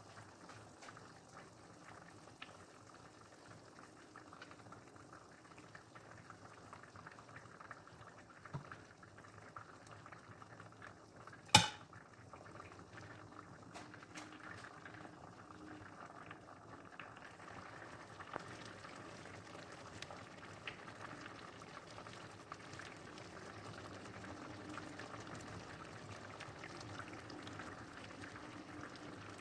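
Liquid bubbling in a pot on the stove, with many small crackles, growing gradually louder. A single sharp knock stands out about twelve seconds in.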